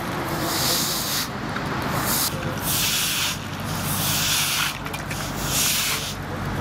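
Push brooms sweeping across wet asphalt, a scraping swish about once a second, over a steady low hum.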